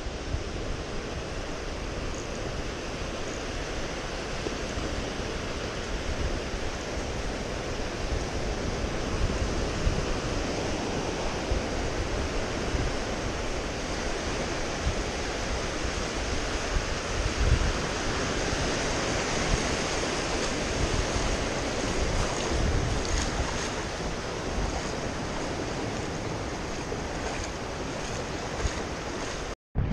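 Ocean surf washing in steadily, with wind rumbling on the microphone.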